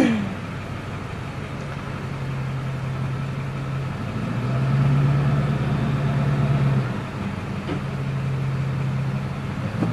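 Car engine and road noise heard from inside the cabin: a steady low hum that grows louder for a couple of seconds in the middle, then settles back.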